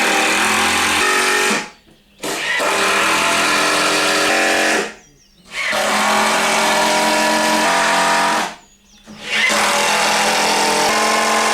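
Power drill driving screws into wood: four runs of about two to three seconds each with short pauses between, the motor's pitch stepping down during each run as it takes the load.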